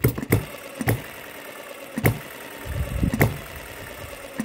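MUSA HM-01 7cc four-stroke model hit-and-miss engine running, with a sharp bang at each firing: three in quick succession at the start, then single firings about a second apart as it coasts on its flywheels between them. Its fuel needle has just been opened a little, and it is firing evenly.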